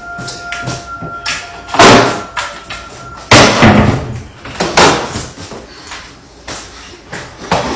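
Repeated loud bangs and thuds off-camera, like a door slamming, roughly one every second or two with smaller knocks between. A faint steady high tone runs under the first three seconds.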